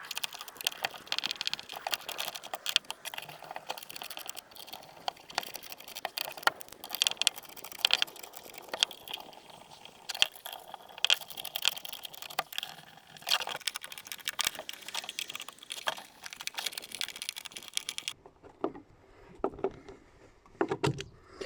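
Dense, irregular clicks, taps and rattles of a cordless impact driver's plastic housing and metal internals being handled and fitted together by hand. The clatter stops a few seconds before the end.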